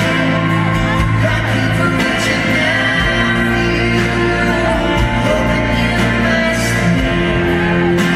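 Live country-pop band performance: male and female voices singing together in harmony over acoustic guitar and a band with a steady beat.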